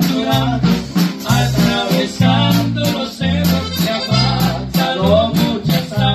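A live band playing a song: electric bass and acoustic guitar with accordion, with men singing.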